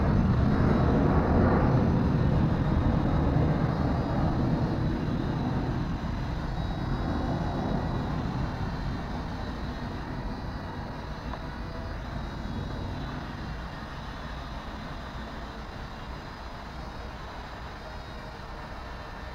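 Small quadcopter drone's propellers and motors running on the water, the sound fading steadily as the drone moves away.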